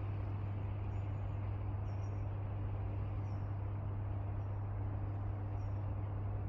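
Steady outdoor background noise with a constant low hum, and a small bird's faint high chirp repeating about once a second.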